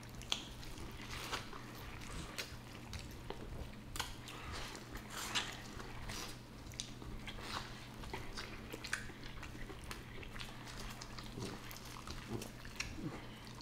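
Close-miked eating sounds from a sauce-drenched seafood boil: wet chewing, biting and smacking, with scattered short clicks, over a low steady hum.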